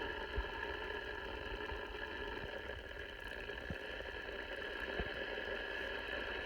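Cobra 29XLR AM CB radio receiving an empty channel with the RF gain turned up: a steady hiss of band static from its speaker, with a few faint crackles.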